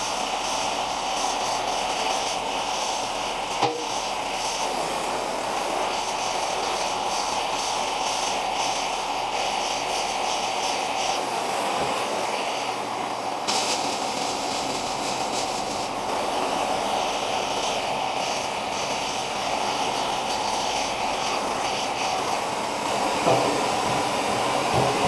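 Gas torch flame burning with a steady hiss, heating flat steel so it can be bent around into a sleeve.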